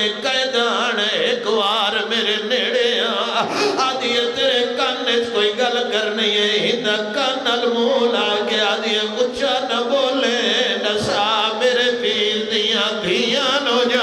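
A man's voice chanting a mournful lament in long, wavering sung phrases with heavy vibrato. This is the zakir's sung recitation of the masaib, the sufferings of Karbala, at a majlis.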